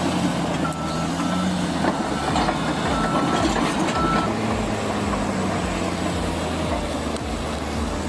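Heavy machine's engine running steadily, with a high warning beeper sounding in short, unevenly spaced beeps during the first half.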